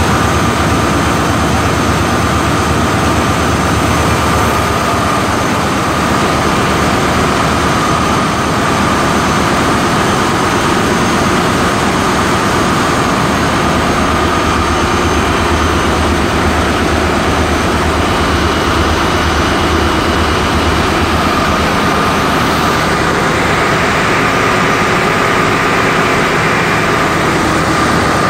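Accommodation air-conditioning plant with its Emerson Copeland scroll compressor running: a steady, loud machinery drone with an even high whine over it.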